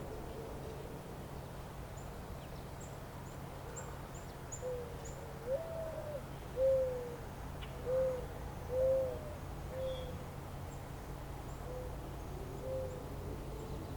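A bird giving a series of about eight short, low hooting notes roughly a second apart, loudest in the middle of the run. Faint high chirps of small birds and a steady low rumble sit underneath.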